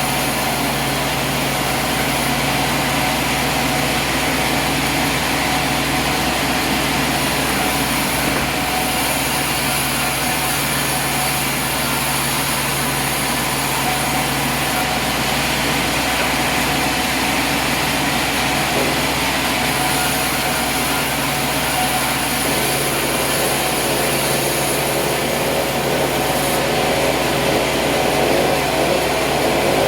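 An engine running steadily under a constant load, with a high whine above it. Its pitch starts to rise right at the end.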